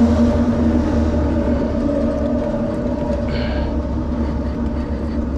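Steady low engine hum with a held drone, fading slightly. A brief high squeak comes about three seconds in.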